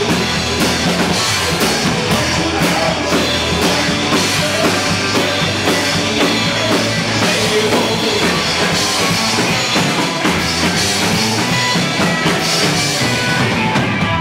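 Live country-rock band playing loud: drum kit with electric and acoustic guitars.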